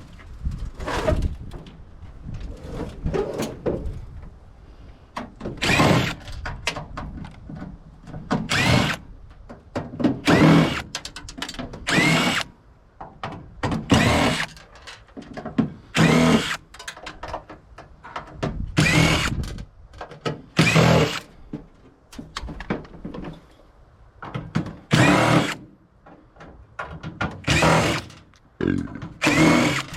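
Power drill running in about a dozen short bursts, each spinning up with a rising whine and then stopping, while a scrap microwave is being taken apart.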